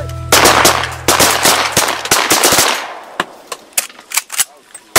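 A volley of shotgun fire from several hunters. Many shots crowd together over the first two and a half seconds, then a few scattered, quieter single shots follow.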